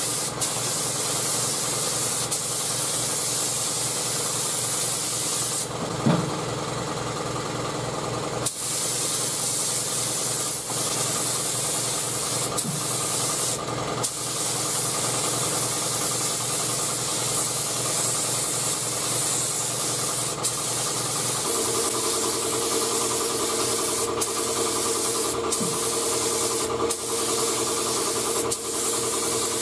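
Gravity-feed air spray gun hissing steadily as it sprays metallic base coat, over a steady mechanical hum. The hiss drops away for a couple of seconds about six seconds in and again briefly near fourteen seconds.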